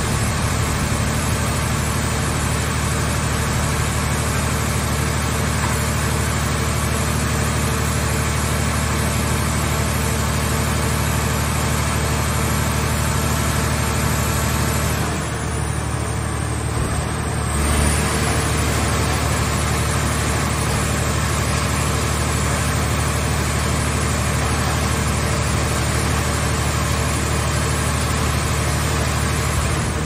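Scrap car baler's hydraulic power unit running steadily, a constant machine drone with a low hum. About halfway through, the higher part of the sound thins out for a couple of seconds, then a short low thud.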